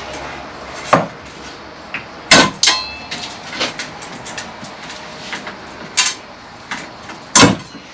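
Hand tools knocking and prying at timber while stapled fixings are worked loose: a run of irregular sharp knocks and clicks, the two loudest about two and a half seconds in and near the end.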